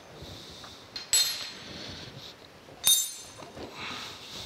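Two sharp metal clinks, each ringing briefly, about one and three seconds in, with a softer knock after, as steel parts and tools knock against a cast-iron bearing housing while it is assembled.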